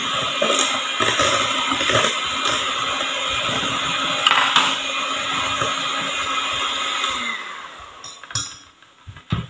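Electric hand mixer running steadily, its beaters whirring through cake batter and ticking against the sides of a stainless steel pot. It is switched off about seven seconds in, and a sharp knock follows near the end.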